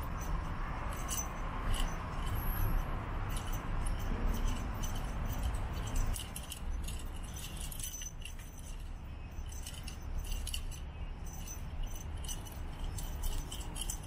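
Light, irregular jingling and clinking from a feather wand cat toy being flicked about, over a steady low rumble.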